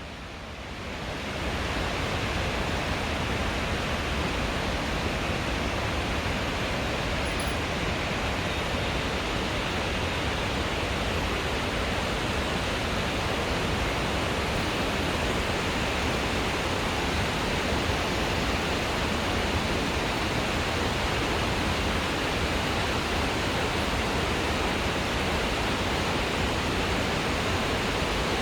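Hagoromo Falls waterfall: the steady noise of falling water, fading in over about the first second and a half.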